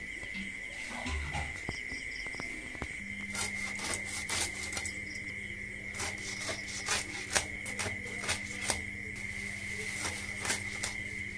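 Hilsa being cut into pieces on a boti, an upright curved fish-cutting blade: irregular sharp clicks and crunches as the blade goes through the fish. Under them a steady high whine runs throughout, and a low hum starts about three seconds in.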